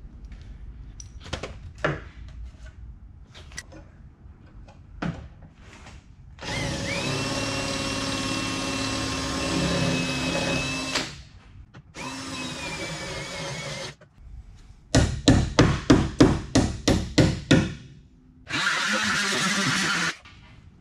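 A handheld power tool cutting out the spot welds of a rusted truck rocker panel. It runs in three bursts of a few seconds each with a steady whine. Between the second and the last burst comes a quick run of about a dozen sharp metal knocks, some four a second.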